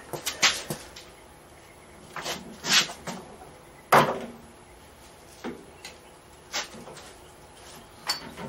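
Scattered clunks and knocks of a VW Beetle transaxle being handled and set into the chassis floor pan, with a sharp knock about four seconds in the loudest.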